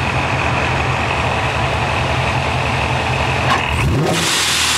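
Supercharged Corvette LS V8 idling with a steady lumpy pulse and a faint high steady whine, then revved about three and a half seconds in, the pitch sweeping up as a loud rushing hiss comes in over it.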